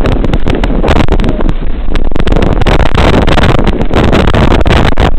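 Loud rumbling wind and handling noise buffeting the head-mounted camera's microphone, with scattered short knocks and rustles.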